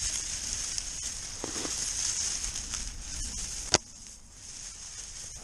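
Dry, tall grass stalks rustling and crackling as they brush against the camera pushing through them, with a few faint ticks and one sharp click nearly four seconds in, after which it goes quieter.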